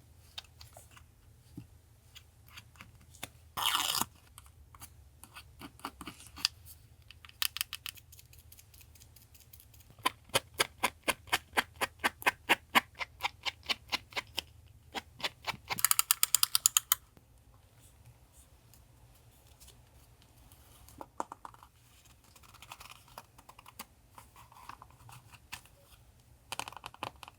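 Hand crafting with paper at a desk: scattered sharp clicks and taps, with a quick even run of about four clicks a second in the middle, and short bursts of paper rustling. A faint steady low hum lies underneath.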